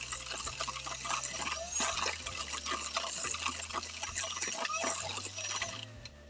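Electric hand mixer running, its wire beaters creaming margarine and sugar and clattering against a stainless steel bowl. It stops just before the end.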